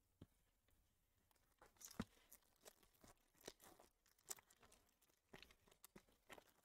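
Faint crinkling and tearing of a foil 2022 Panini Prizm Baseball hobby pack being ripped open by hand, with scattered soft crackles, the loudest about two seconds in.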